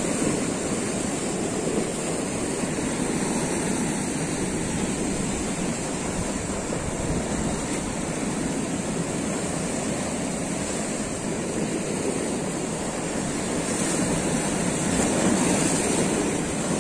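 Sea surf breaking and washing over a rocky shore: a steady rush of water that swells a little near the end.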